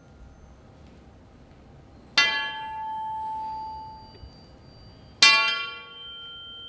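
A long metal pole struck against the floor twice, about three seconds apart, each strike ringing out with bright, bell-like overtones that die away.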